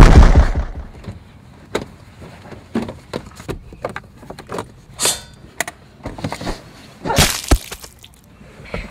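A loud hit at the start, then scattered small knocks and rustles from people moving about inside a car, with a louder scuffle and a thud near the end.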